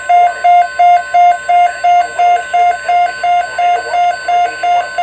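Weather radio receiver sounding an alert: a loud, rapid beeping alarm, about three beeps a second, over a steady high warning tone.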